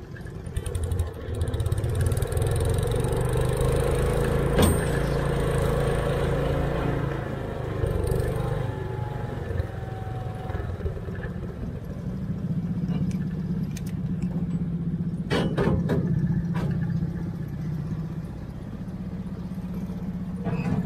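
Garden tractor engine running under load as it drags a weight-transfer pulling sled, the sled's metal frame rattling along. About halfway through it settles into a steadier drone, with a couple of short metal clanks near the end.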